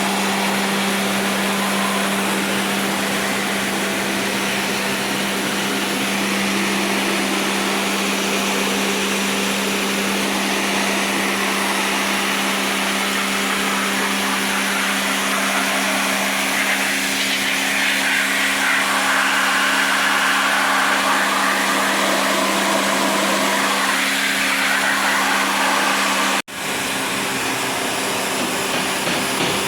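A small electric motor running steadily with a rushing hiss over it, from the cleaning equipment working on a package air-conditioning unit; the sound drops out for a moment near the end.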